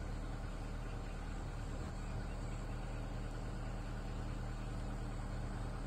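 Safari jeep (Maruti Gypsy) engine idling with a steady low hum while the vehicle stands still.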